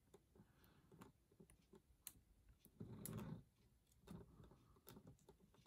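Near silence with faint, scattered small clicks and soft handling sounds as the plastic grappling-hook accessory is fiddled with on the arm of an action figure.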